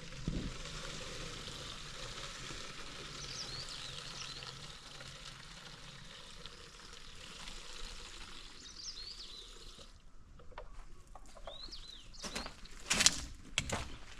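Water pouring and splashing in a steady hiss that stops suddenly about ten seconds in. Birds chirp briefly a few times, and a few sharp knocks come near the end, the loudest about a second before it.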